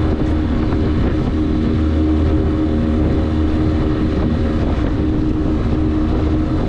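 Outboard motor running steadily at a constant speed with the boat under way, with some wind on the microphone.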